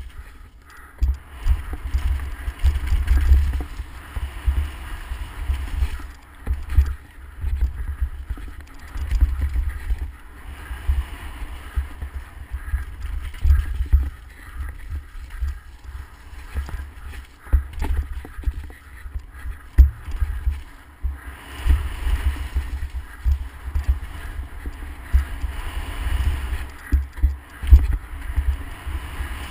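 Mountain bike descending a dirt trail at speed: wind buffeting the microphone, with frequent irregular knocks and rattles as the bike hits bumps and roots, over the rush of tyres on dirt.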